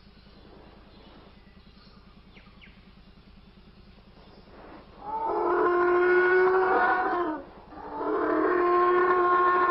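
Two long, even-pitched calls of a duck-billed dinosaur (a film sound effect), one right after the other, starting about five seconds in. Each dips slightly in pitch as it ends. Before the calls there is only a faint low hum.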